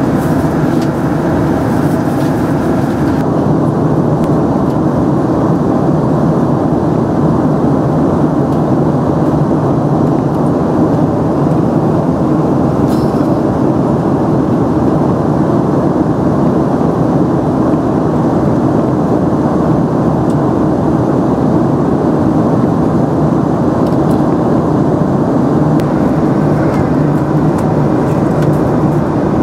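Steady cabin noise of a Boeing 767-300ER in flight: the even rush of air and the General Electric CF6-80C2 turbofans, heard from a window seat beside the engine. The higher hiss drops away about three seconds in.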